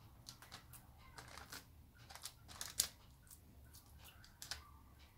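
Faint, scattered soft taps and rustles of hands setting and pressing minced-meat patties onto zucchini rings on a parchment-lined baking tray.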